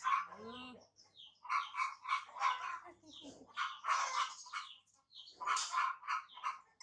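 Baby monkeys squealing: short, repeated high-pitched cries in a string of bursts with brief pauses between them.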